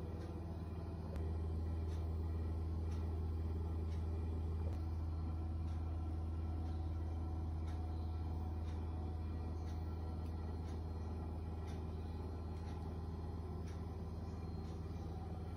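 Steady low hum with a few faint steady tones above it, stepping up a little in level about a second in, with faint clicks about once a second.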